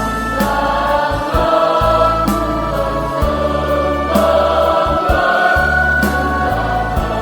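A choir singing a hymn in sustained chords over an accompaniment of held bass notes, with a light beat about once a second.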